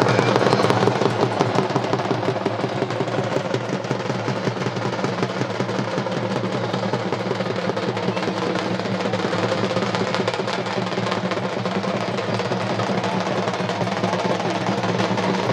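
Music with rapid, dense drumming over a steady low drone.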